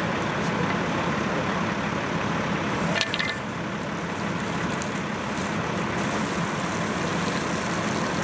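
Fire engine's engine and pump running steadily at the pump panel while a hose sprays water. There is a short clatter about three seconds in.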